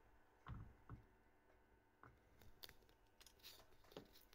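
Faint handling noises of a metal micromotor handpiece being worked with gloved fingers on a rubber mat: a soft thump about half a second in, a small click, then a few light ticks and scrapes.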